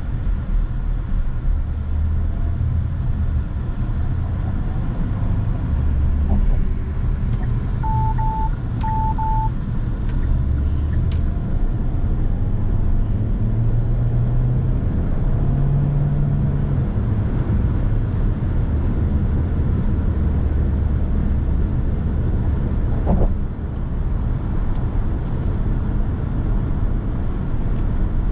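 Kia Sorento 1.6 T-GDi hybrid SUV driving on the road, a steady low drone of powertrain and road noise that shifts in pitch now and then. Two short identical electronic beeps sound about eight and nine seconds in, and a single knock near the end.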